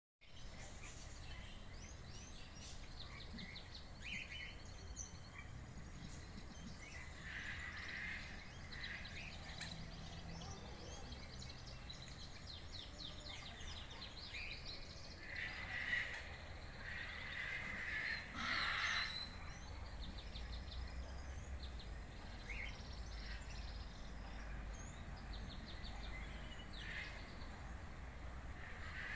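Several birds calling and singing, with short calls and quick trills, over a steady low outdoor background noise; the loudest calls come about sixteen and nineteen seconds in.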